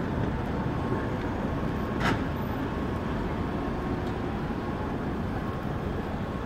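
Steady rumble of city traffic, cars, a tram and a van rolling across a cobbled intersection, with no horns. A brief sharp click sounds about two seconds in.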